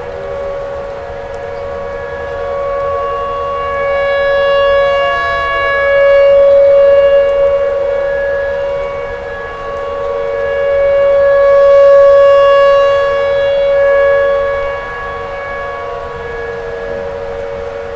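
Outdoor tornado warning siren sounding a sustained steady wail. Its loudness swells and fades twice, peaking about a third of the way in and again about two-thirds of the way in.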